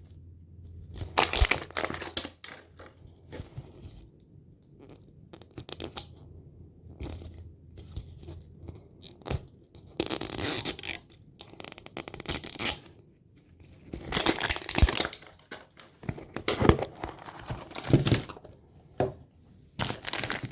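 Wrapping being torn and peeled off a toy surprise ball by hand. It comes in irregular bursts of tearing with crinkling in between, loudest about a second in and again from about halfway through.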